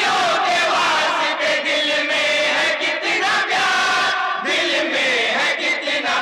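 A group of men singing an Urdu naat together in a chanting style, amplified through microphones.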